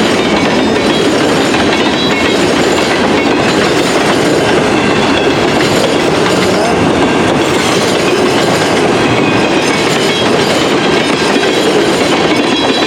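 Freight train cars rolling past at slow speed, a loud, steady rumble and rattle of wheels on rail, with a few faint, brief high-pitched wheel squeals.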